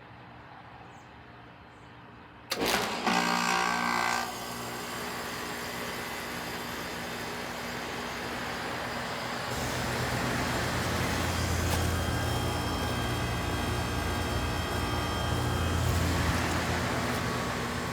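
Goodman GSZ14 heat pump in a defrost cycle: a sudden loud whoosh of refrigerant about two and a half seconds in, as the reversing valve shifts. The unit then runs with a steady hiss and hum, which grows louder about ten seconds in.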